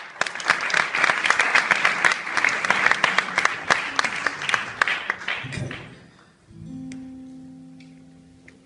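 Audience applauding for about six seconds, dying away. Then a guitar is strummed once and left to ring, fading slowly.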